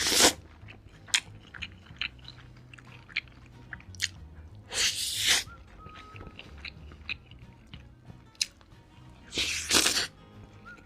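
A person biting into and chewing crunchy food close to the microphone: three loud crunches, at the start, about five seconds in and near the end, with small wet chewing clicks between them. Background music plays underneath.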